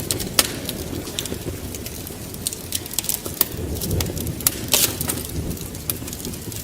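Wood fire in a fireplace crackling, with irregular sharp pops over a steady low rumble. One louder pop comes about half a second in, and a cluster of pops near the end.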